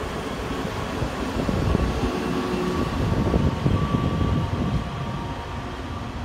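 Taiwan Railway EMU300 electric train running along the track: a low rumble of wheels on rails with a faint steady whine over it, loudest in the middle and easing off near the end as the train moves away.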